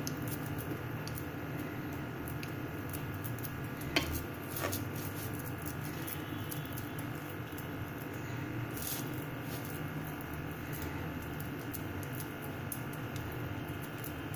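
Soft handling sounds of khoa dough being pressed into a hinged metal modak mould, with a sharp metallic click about four seconds in and a smaller one just after. A steady low hum runs underneath.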